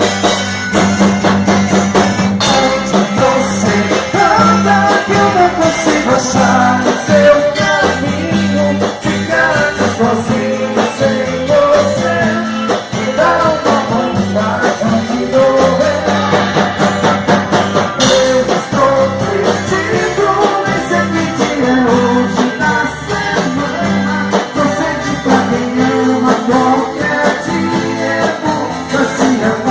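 Band music: an instrumental passage with a steady drum beat under a melody line, with no clear sung words.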